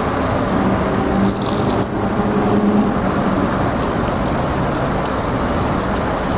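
Steady background din like road traffic, with a low engine-like hum for the first few seconds.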